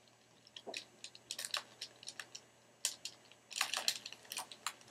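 Buttons and thumbsticks of a handheld game controller clicking and clacking in irregular flurries under rapid thumb presses, busiest a little past the middle.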